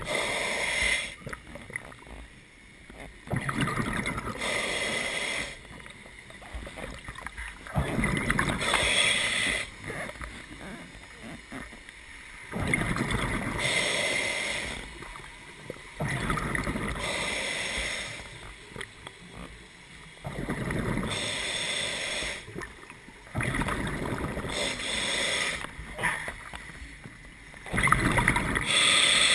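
A scuba diver breathing through a regulator underwater: a regular series of bubbling exhalations, each a second or two long, about every three seconds.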